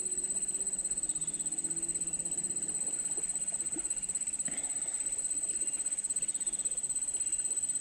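Insects buzzing in one steady, high-pitched tone with a fast, even pulse.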